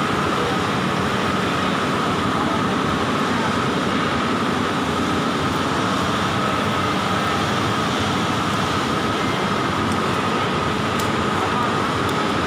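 Steady, loud industrial machinery noise: an even rushing din with a constant high-pitched whine running through it, with no impacts.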